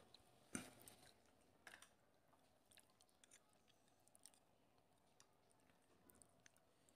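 Near silence broken by a few faint, scattered clicks and smacks of people eating rice and curry by hand and chewing, the clearest about half a second in.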